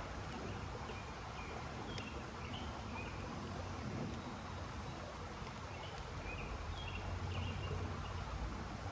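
Outdoor ambience: a steady low rumble under an even hiss, with a bird chirping short notes in two bouts, and a single sharp click about two seconds in.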